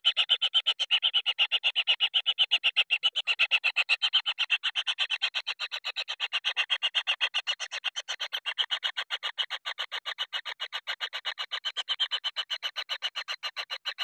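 Kingfisher nestlings giving a rapid, pulsing begging call, about six notes a second, kept up without a break: hungry chicks calling for food.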